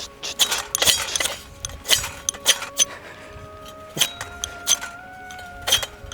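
A steel fire striker hit repeatedly to throw sparks: about a dozen sharp metallic strikes, roughly two a second, in an uneven rhythm.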